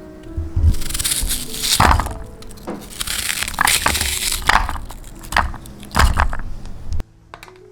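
Irregular crunching and rustling noises with low knocks, as objects are handled, over soft background music; the handling cuts off abruptly about seven seconds in.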